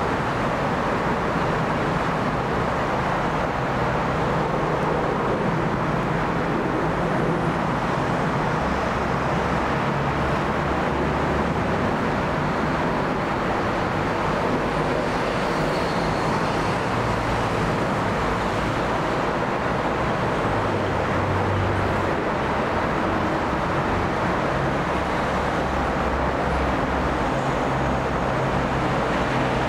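Steady, even roar of distant engine noise, with no rise or fall.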